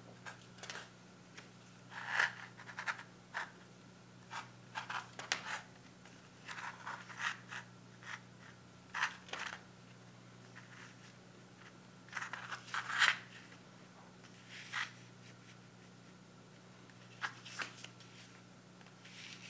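Glossy paper pages of a CD booklet being turned and handled by hand: short, sharp rustles and flicks in irregular clusters every second or two, the loudest about two and thirteen seconds in.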